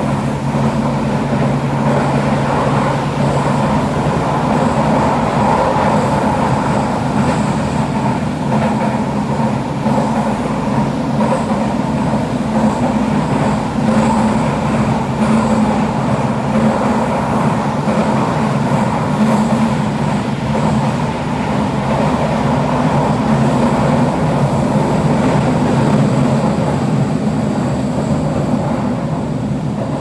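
Toei Oedo Line linear-motor subway car heard from inside while running at steady speed: a constant rumble of wheels on rail with a steady low hum from the running gear.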